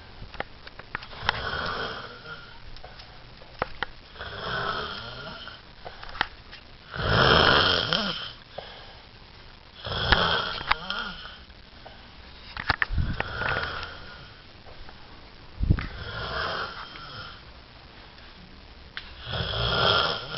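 A sleeping person snoring steadily, one snore about every three seconds, seven in all, the loudest a little over seven seconds in.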